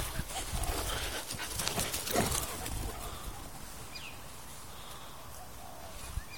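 Young pups at play, with a short rising whimper about four seconds in over a low rumble.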